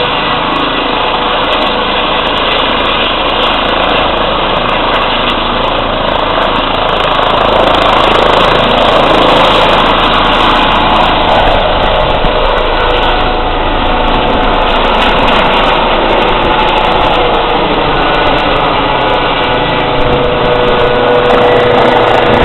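Eurocopter EC135 air ambulance helicopter's turbines and rotor running as it lifts off and climbs away. A steady whine sits over the rotor noise, growing louder about eight seconds in and again near the end.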